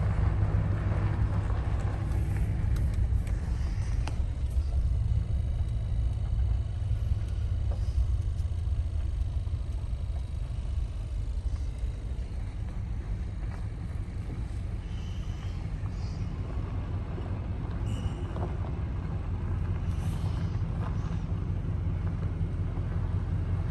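Steady low rumble of a vehicle's engine and road noise heard from inside the cabin as it moves slowly, with a few faint clicks and knocks.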